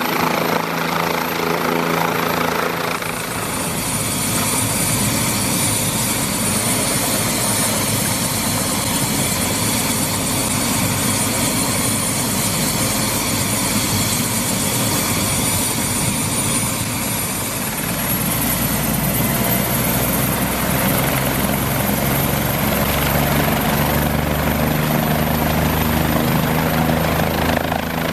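Bell 407 helicopter running on the ground: its single turboshaft engine whines high and steady over the beat of the turning four-blade rotor. Past halfway the whine shifts in pitch and a lower rumble grows louder.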